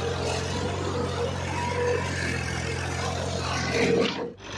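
Tractor diesel engine running steadily under load, heard from on board the tractor. The sound drops out abruptly near the end.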